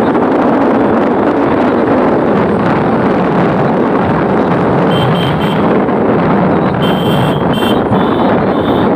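Steady noise of a moving motorcycle: engine running and wind rushing over the microphone at road speed. Short high-pitched tones join in a few times from about five seconds in.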